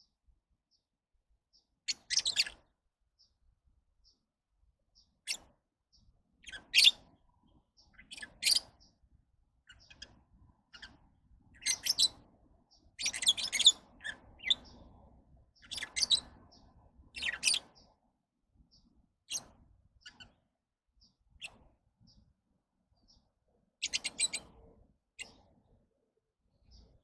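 Lovebirds chirping in short, shrill bursts, about a dozen of them, with faint single high peeps in between.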